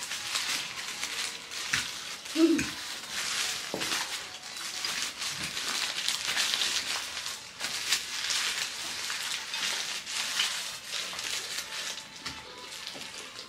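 Carbonated soda poured from a can into a glass of ice, then fizzing, a steady high crackling hiss with many tiny pops. A brief low hum sounds about two and a half seconds in.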